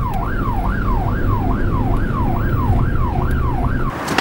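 Police car siren sounding a fast rise-and-fall wail, about two cycles a second, over the car's engine hum, heard from inside the cabin. It stops suddenly near the end.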